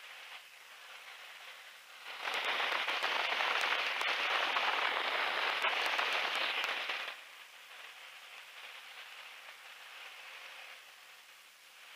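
Rushing airflow noise in a biplane's open cockpit in flight, heard faintly and thinly. About two seconds in it swells into a much louder rush that lasts about five seconds, then drops back to the faint hiss.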